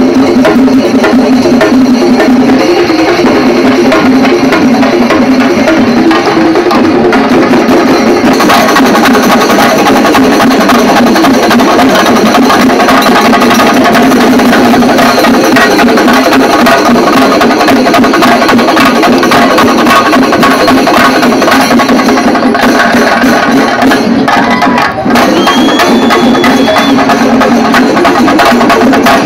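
A group of chenda drums beaten with sticks in a loud, dense, unbroken rhythm. The loudness dips briefly about 25 seconds in.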